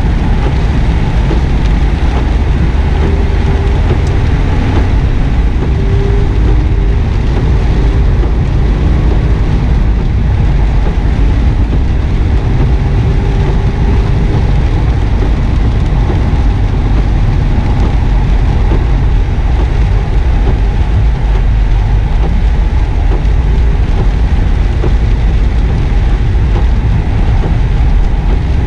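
In-cabin sound of a 2009 Subaru WRX S's turbocharged flat-four engine pulling at mid revs, with tyre and road noise from wet tarmac. It is a steady, low-heavy noise.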